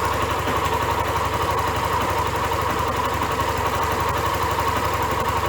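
Yamaha Crosser XTZ 150's single-cylinder engine idling steadily, with quick, even firing pulses.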